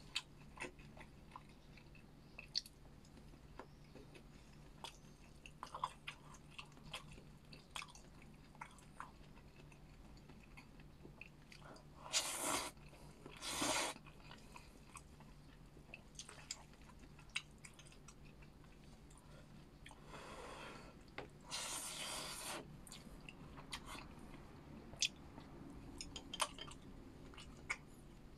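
A person chewing and biting food close to the microphone, with small wet mouth clicks throughout. Four short, louder rushes of noise come about halfway through and again about two-thirds of the way in.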